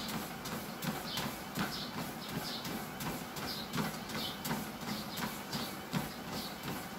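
Running footsteps on a BAAM-001A electric treadmill at speed 8: shoes landing on the moving belt and deck in a steady rhythm of between two and three steps a second, a small thud of foot impact with each stride.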